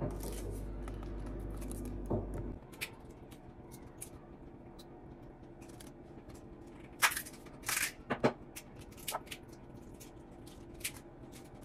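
Pleated paper cupcake liners crinkling and rustling in short, scattered bursts as the cupcakes are picked up, set down and topped by hand; the loudest few come close together about seven to eight seconds in. A low steady hum underneath stops abruptly about two and a half seconds in.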